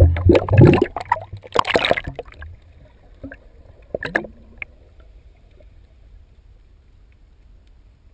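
Water splashing and sloshing around a scuba diver's gear, loudest in the first two seconds, with one more short splash about four seconds in.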